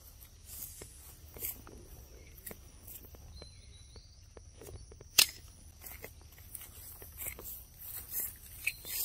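Monkeys' footsteps rustling and crunching in dry leaf litter, a scatter of light irregular rustles, with one much louder sharp click about five seconds in.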